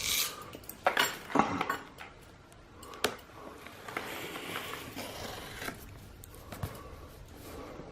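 A package being opened with a Kershaw pocket knife: the blade scraping and slicing through packing tape and the box being handled, with a few sharp clicks and knocks.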